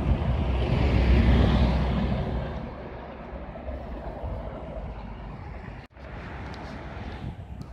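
A city bus driving past close by: a low engine and tyre rumble swells, peaks about a second in and fades over the next couple of seconds. Steadier, quieter street traffic follows, with a brief dropout about six seconds in.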